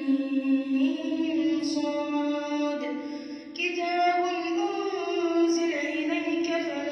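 A young boy's voice reciting the Quran in melodic tajweed chant, drawing out long held notes, with a short break about three seconds in before the next phrase.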